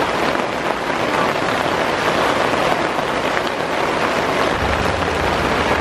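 Heavy downpour during a thunderstorm, a loud steady hiss of rain drumming on and around a pop-up canopy tent. A low rumble joins near the end.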